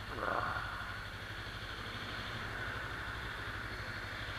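Kawasaki Ninja 300's parallel-twin engine running steadily, with a hiss over it. Right at the start there is a brief sound falling in pitch.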